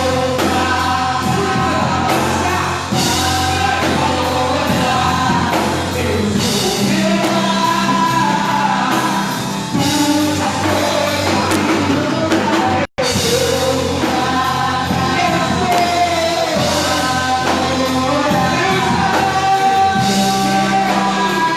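A church worship band playing a song with a lead voice singing over it. The sound cuts out completely for a split second about thirteen seconds in.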